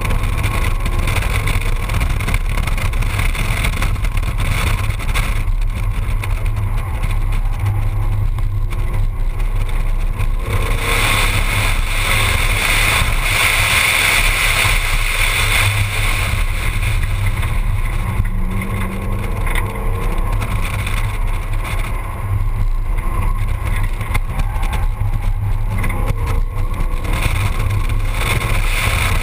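Ford Mustang being driven gently around a race track: steady engine and road noise mixed with wind rushing over a camera mounted outside the driver's window. A stronger hiss swells for several seconds about halfway through.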